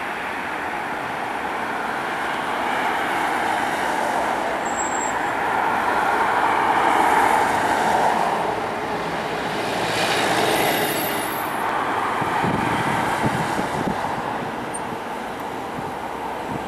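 Boeing 747-400 freighter's four turbofan engines at takeoff power during the takeoff roll: steady jet noise that swells and eases as the aircraft passes, with a low crackling rumble joining in about two thirds of the way through.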